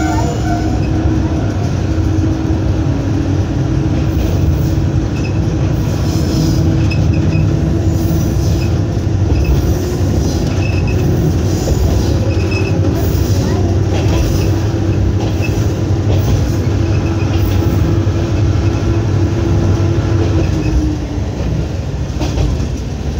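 KiHa52 diesel railcar heard from the driver's cab: its DMH17 diesel engines run under power with a steady drone over wheel and rail noise, with occasional clicks from the track. About 21 seconds in the engine note drops away as power is shut off and the railcar coasts.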